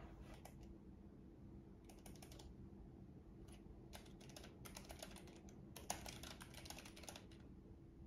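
Keychron K3 low-profile mechanical keyboard being typed on: faint key clicks in short runs, several brief bursts with pauses between them.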